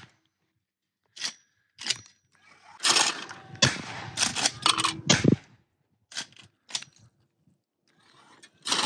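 A series of sharp shotgun reports with short ringing tails, fired at clay targets. They come in quick edited fragments broken by sudden silences, and the loudest and deepest comes about five seconds in. Brief voices are mixed in.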